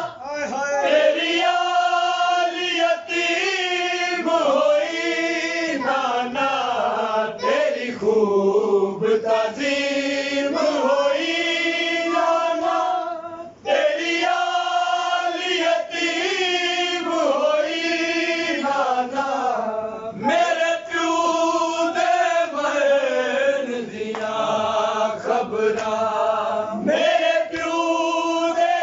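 Several men's voices chanting a Punjabi noha, a Shia lament sung without instruments, in long drawn-out melodic lines that pause briefly about halfway through.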